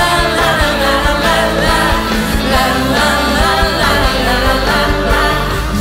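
Live pop music with heavy bass, and female voices singing over it.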